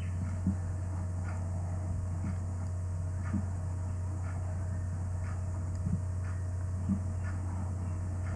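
Steady low electrical hum with faint room noise, broken by a handful of soft, faint clicks.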